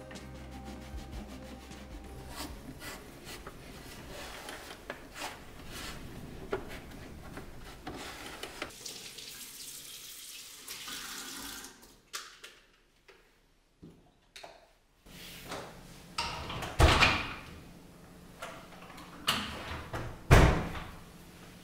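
Kitchen housework sounds: small clicks and knocks of handling, a few seconds of water running from the tap, then two loud knocks of a kitchen cabinet door being shut, about three and a half seconds apart.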